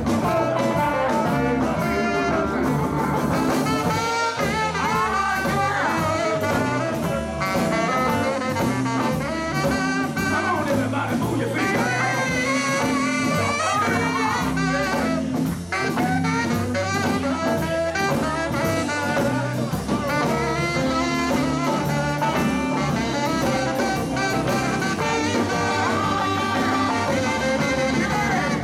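Live blues band playing an instrumental passage on electric guitars, bass, drum kit, keyboard and saxophone.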